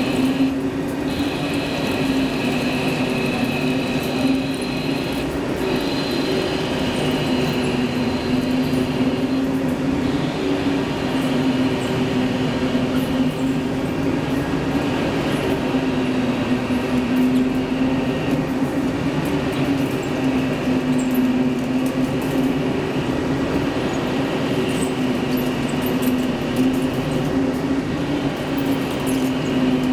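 CNC double-column vertical lathe (VTL-100CNC) running, turning the outer diameter of a large steel ring: a steady machine drone with a low hum that wavers slightly in pitch, a thinner high whine above it and the hiss of the cut.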